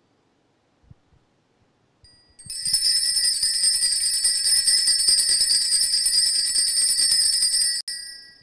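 Altar bells shaken continuously, a bright high jingling that starts about two seconds in and stops abruptly near the end. They mark the celebrant's entrance to the altar at the start of the Mass.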